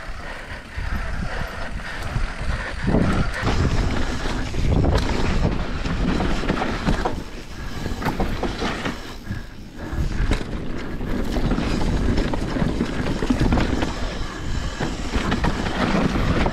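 Mountain bike descending a rain-wet downhill trail. Tyres run over the dirt while the chain and frame rattle and knock over bumps, steadily throughout.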